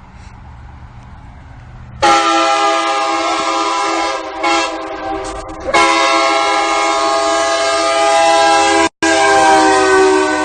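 Nathan K3LA three-chime air train horn mounted on a van, sounded in long chord blasts a few seconds each, beginning about two seconds in after a low steady rumble.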